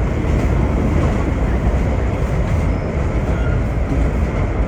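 Vintage R1-9 subway train running at speed: a steady loud rumble of wheels on rail and running gear, heard from inside the car.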